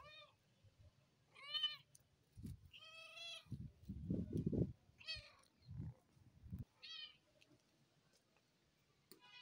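Orange tabby kitten meowing repeatedly: about six short, high-pitched meows one to two seconds apart, the longest a little after three seconds in. Low muffled bumps come between the calls, loudest around the middle.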